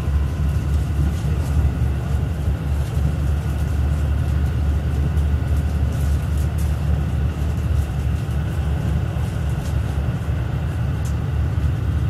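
Steady low drone of a JR Central KiHa 85 series diesel railcar running, heard inside the passenger cabin: its Cummins diesel engines and the wheels on the rails, with a few faint clicks now and then.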